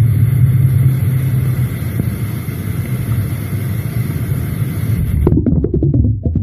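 Low, steady underground rumble recorded at a borehole, which the recorders claim is the noise of tunnel-digging machinery. About five seconds in, it breaks into a rough stretch of irregular crackling knocks.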